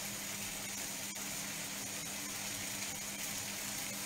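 Tomato sauce sizzling steadily in a frying pan on a gas hob: an even hiss with a faint low hum under it and a few faint ticks.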